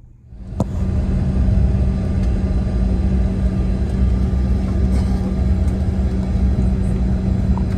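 Inside the cabin of a CRJ-200 regional jet, the steady rumble and hum of its engines running and its wheels rolling on the runway. The sound comes in suddenly about a third of a second in, with a single click just after.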